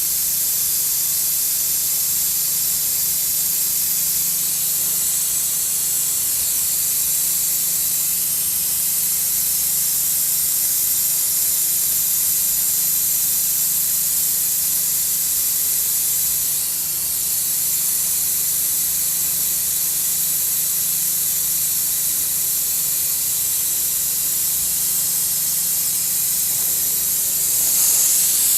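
Oil extractor hissing steadily as it sucks transmission oil out of a CVT torque converter through its pipe. A low hum sits under the hiss, which dips briefly partway through and grows a little louder near the end.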